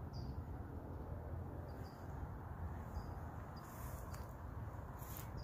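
Quiet outdoor garden ambience: a steady low rumble with a few short, high bird chirps scattered through.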